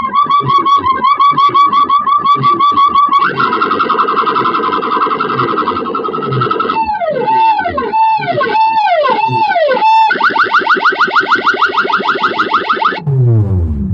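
Electronic beat-music tones played loud through a DJ sound system with stacked power amplifiers: a fast-pulsing tone, then a buzzing stretch, then a run of swooping tones that rise and fall about twice a second. After that come rapid pulses, and near the end deep falling bass sweeps.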